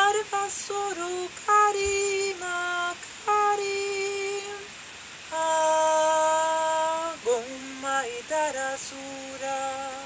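A woman singing wordless light-language syllables: a run of short held notes, a long steady note about halfway through, then a slide down into more short notes.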